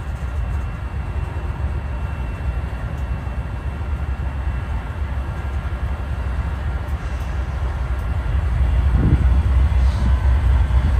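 Diesel-electric freight locomotives working hard to shove a train backward: a heavy low engine rumble that grows louder about eight seconds in, with a faint steady high tone above it.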